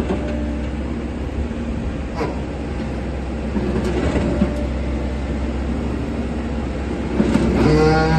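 Wheel excavator's diesel engine running steadily with a low hum. A pitched tone starts near the end.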